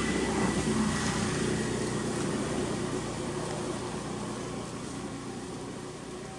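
Steady engine hum of a motor vehicle, slowly fading away.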